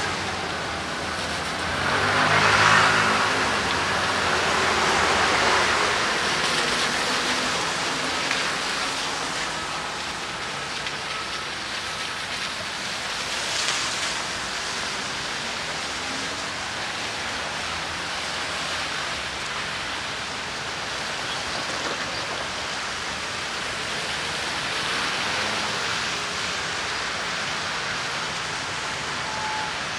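Steady hiss of rain on a city street, with a motor vehicle passing on the wet road about two to five seconds in, the loudest moment.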